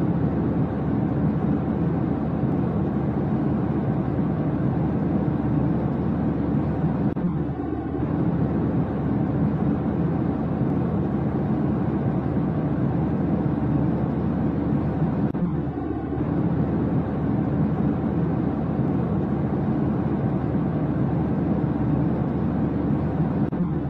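Steady low drone of jet airliner cabin noise: a recorded loop that repeats about every eight seconds, with a slight dip at each seam.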